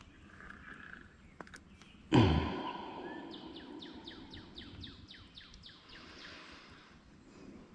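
A sudden heavy thump about two seconds in, followed by a songbird singing a rapid run of about a dozen short, high, falling chirps, over faint outdoor background noise.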